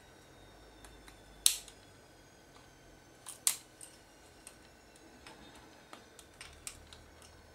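Plastic case of a Sony DSC-H10 compact camera being prised apart with a tool: sharp clicks as the shell is levered, the loudest about a second and a half in and a pair about three and a half seconds in, with lighter ticks between.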